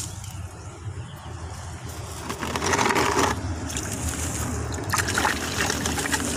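Water sloshing and splashing in a plastic tub as a plant's root ball is dunked and worked by hand to wash the soil out, loudest about three seconds in and again around five seconds. A steady low hum runs underneath.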